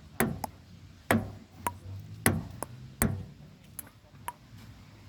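Table tennis rally: a ping-pong ball clicking off the paddles and the table, about a dozen sharp taps at irregular intervals of roughly half a second.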